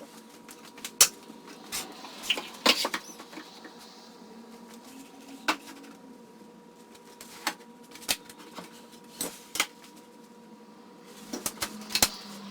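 Scattered sharp knocks and clicks from wood pieces and hand tools being handled on a workbench, irregular and a few seconds apart, with a quick cluster near the end, over a faint steady hum.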